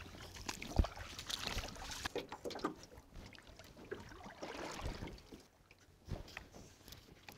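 Shallow water lapping and splashing at the shore, with scattered light knocks and small splashes.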